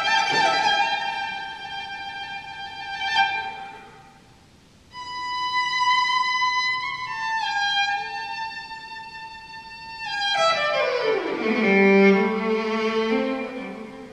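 Solo violin playing slow, long held notes. The music almost drops out for a moment about four seconds in, then high notes step down one by one before a long sliding descent to a low sustained note.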